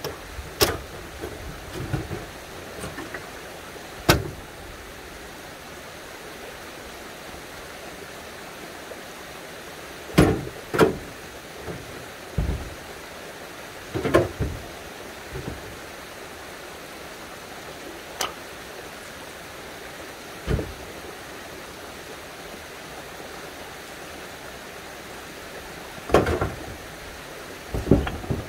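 Stones of a dry-stone wall knocking and clacking against each other as they are pulled off by hand, a dozen or so separate sharp knocks at irregular gaps, some in quick pairs, over a steady rushing background.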